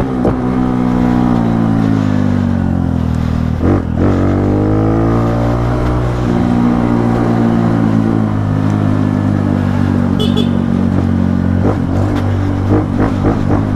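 Honda Pop 110i's single-cylinder four-stroke engine running on the move through an open aftermarket exhaust with the air filter removed, a loud steady drone. About four seconds in it breaks briefly, then the revs climb again.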